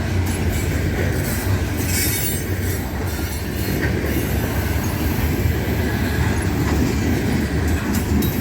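Loaded coal train's freight cars rolling steadily past, steel wheels rumbling on the rails, with a brief high hiss about two seconds in.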